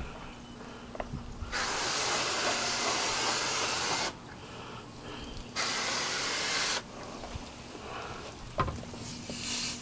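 Nu-Calgon coil gun spraying coil cleaner onto an air-conditioner condenser coil: two bursts of hissing spray, the first about two and a half seconds long, the second a shorter one about a second and a half later.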